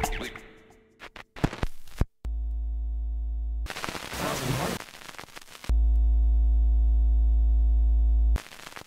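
Two steady electronic buzzing tones, each a low hum with a row of overtones, separated by a burst of hiss; the second tone is louder and cuts off abruptly near the end. A few clicks come before the first tone.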